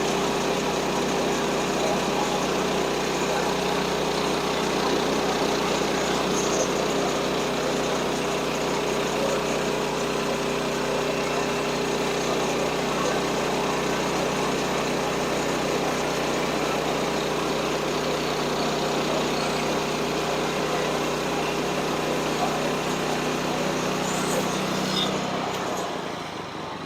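Portable band sawmill running steadily on its small gasoline engine, then winding down about 25 seconds in.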